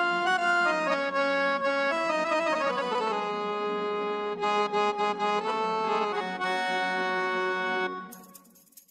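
Background instrumental music of held chords under a moving melody, fading out about eight seconds in.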